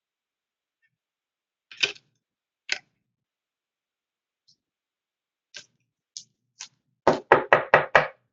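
Scattered short clicks and taps, then a quick run of five sharp knocks near the end, about five a second.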